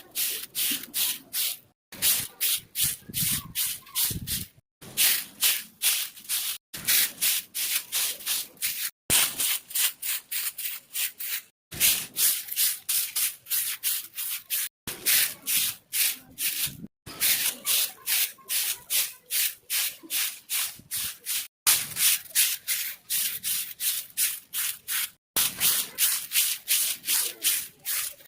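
Rapid, even scrubbing strokes, about four a second, broken by short clean cuts every two to three seconds.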